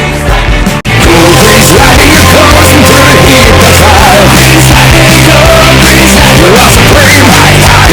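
Loud rock music, breaking off for an instant a little under a second in and then resuming as a dense, steady full-band passage.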